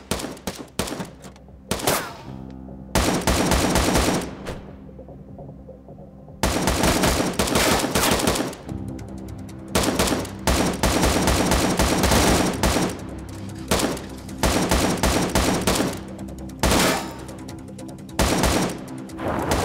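Rifle gunfire in repeated rapid bursts, each lasting one to a few seconds, with tense background music underneath.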